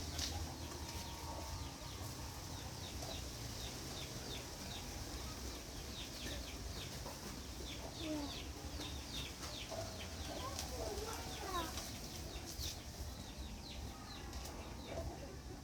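Birds chirping: a run of short, high chirps falling in pitch, several a second, over a steady low rumble.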